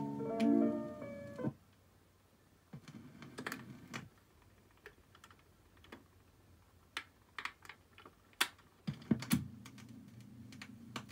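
Music from a 45 playing on the Weltron 2007's BSR record changer cuts off about a second and a half in. The changer mechanism then cycles with a series of sharp mechanical clicks and clunks as the tonearm lifts, swings out and returns. Near the end there is a low thump as the stylus sets down on the record.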